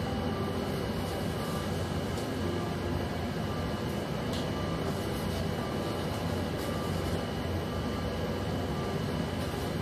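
Steady low mechanical hum with a hiss, running evenly without change, with a faint tick about four seconds in.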